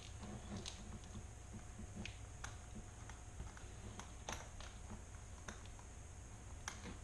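Scattered light metallic clicks and taps as a stainless steel Kerdi-Line linear drain grate is handled and seated in its channel, about eight in all at uneven intervals, over a faint steady hum.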